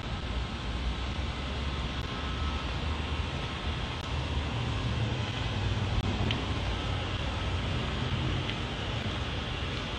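Steady low rumble with a hiss over it: outdoor background noise, wind and distant traffic, picked up by a phone microphone.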